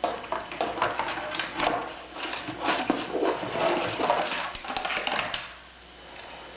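Rustling and light clicking as small car-alarm kit parts are handled and moved about, stopping about five and a half seconds in.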